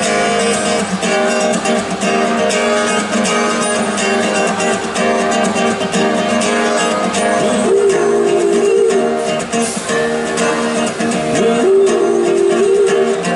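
Live acoustic band playing an instrumental passage: strummed acoustic guitar with a melody line held over it, growing fuller in the second half.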